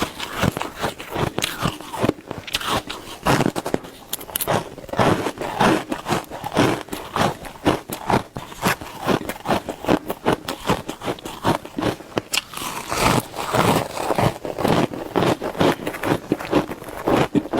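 Shaved ice being bitten and chewed close to the microphone: a fast, continuous run of crisp crunches with scraping in between.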